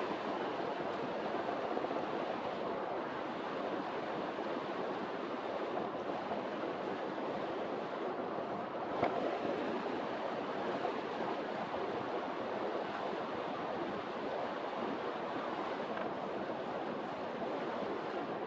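River water rushing steadily over a stream's riffles, an even, unbroken rush.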